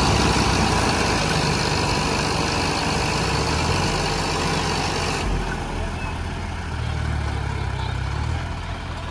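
Diesel farm tractor engines running steadily, a John Deere stuck in mud under a loaded trolley and a second tractor beside it. The noise eases somewhat about five seconds in.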